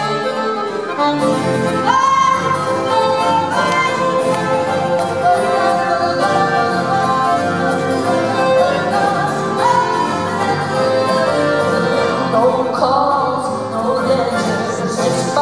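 Acoustic folk band starting a song right after a spoken count-in of "1, 2, 3, 4": accordion, acoustic guitar and double bass playing together, with a voice-like melodic line in places.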